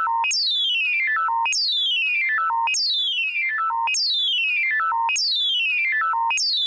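Synthesized electronic alert tone: a quick falling run of high, stepped notes that lands on a lower note, repeated evenly about every 1.2 seconds.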